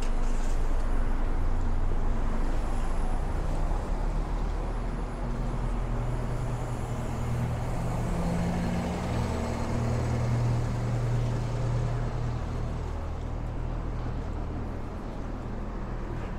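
Busy city-street traffic: the steady low engine hum of heavy vehicles, a double-decker bus and a lorry close by, swelling around the middle and easing off near the end.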